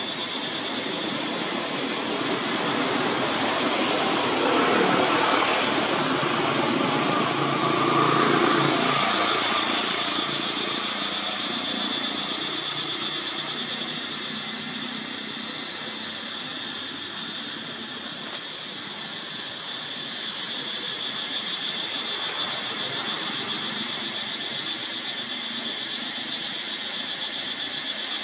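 A motor vehicle engine running, swelling for several seconds and fading again, then a smaller swell later on, over a steady high-pitched drone.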